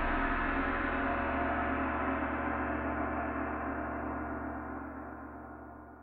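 The last note of the closing music, a deep gong-like strike, rings on with many overtones and slowly fades away. The highest tones die out first, and the sound is almost gone near the end.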